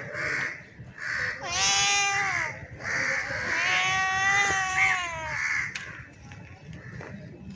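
Domestic cat meowing: two long, drawn-out meows, the first about a second and a half in and the second about three and a half seconds in, with shorter calls between them. It is quieter near the end.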